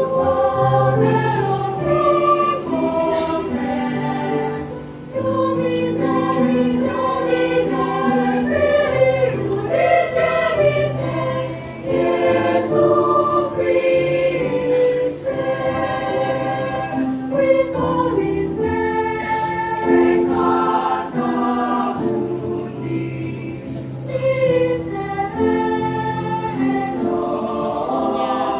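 Children's choir singing a sacred piece in several-part harmony, in long held phrases with short breaks between them.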